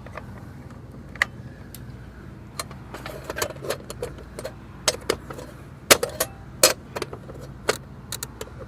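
Scattered sharp clicks and clinks of small hard objects being handled. They are sparse at first and come more often from about three seconds in, over a steady low hum.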